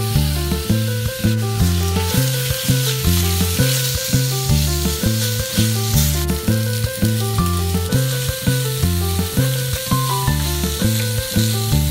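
Chicken pieces sizzling in hot oil in a wok, the hiss starting as the meat goes in and continuing as it is turned with a wooden spatula, under background music with a steady beat.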